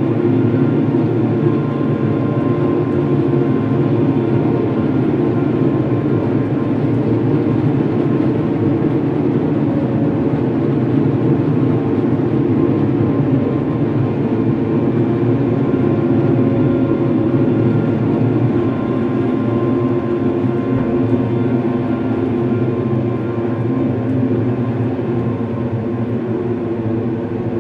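Dark ambient music: a steady, low drone of held tones over a dense rumbling layer, with no beat.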